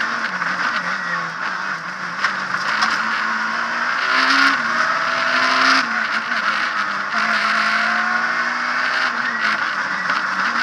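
Abarth Punto S2000 rally car heard from inside the cockpit at racing speed, its two-litre four-cylinder engine revving hard. The revs climb and drop sharply several times, most clearly about four and a half and six seconds in, over loud road and drivetrain noise.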